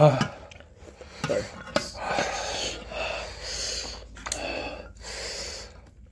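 Heavy, hissing breaths in and out through open mouths, coming in a string of half-second to one-second puffs: the panting of people whose mouths are burning from very spicy fire noodles. A short gasp comes right at the start, and a few light clicks sound in between.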